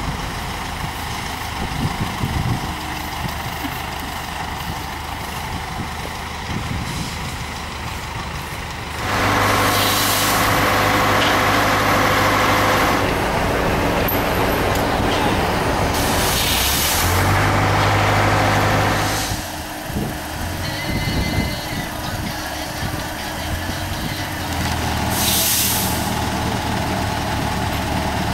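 Heavy truck engine running, growing louder about nine seconds in and easing off about ten seconds later, with three short hisses.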